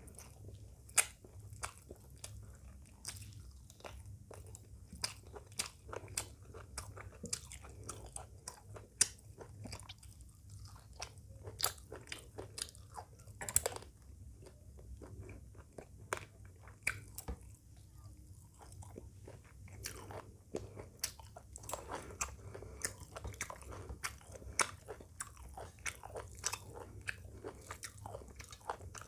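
Close-miked eating sounds: a person biting and chewing a meal of chicken curry, rice and salad. Irregular crisp crunches and sharp mouth clicks come several times a second.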